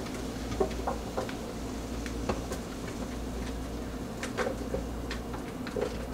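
Scattered soft taps and clicks, about a dozen, as cooked sofrito vegetables and chiles are spooned into an empty blender jar, over a steady low hum. The blender is not running.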